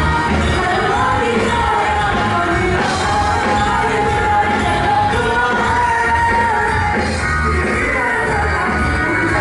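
Live pop-rock music with singing voices carrying a sustained melody over a steady beat.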